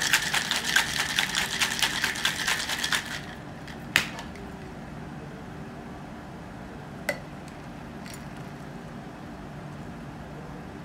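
Ice rattling hard in a Boston shaker (metal tin with a mixing glass) as a cocktail is shaken, about five or six strokes a second. The shaking stops about three seconds in, followed by a sharp knock and, a few seconds later, a lighter one.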